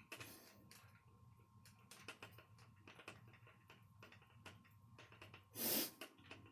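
Faint, irregular clicking and ticking of a screwdriver driving the last screw into the rear housing of a Tamiya Holiday Buggy RC kit. A short, louder rush of noise comes about five and a half seconds in.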